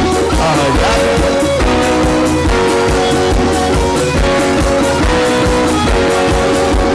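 Live band playing an instrumental interlude: guitar over a steady drum beat.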